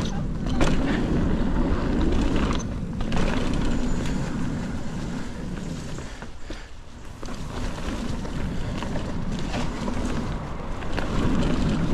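Wind rushing over the microphone as a mountain bike is ridden along a dirt trail, with a low rumble from the ride. The noise drops away briefly about six seconds in, then picks up again.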